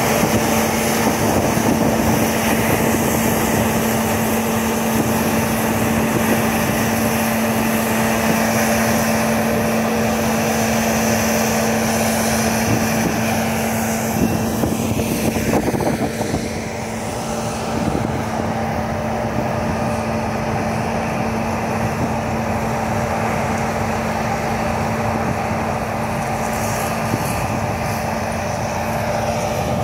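Claas Lexion combine harvester running while harvesting grain: a steady engine and threshing drone with a constant low hum, dipping briefly a little past halfway.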